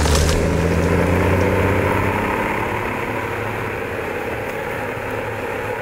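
Heavy diesel engine of logging machinery running steadily with a deep hum, loud at first and slowly growing quieter.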